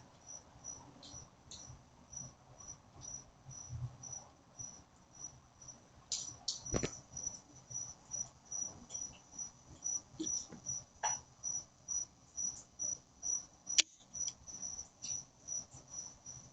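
Crickets chirping in a steady, regular train of short high-pitched pulses. Sharp clicks come about seven seconds in and, louder, near fourteen seconds in.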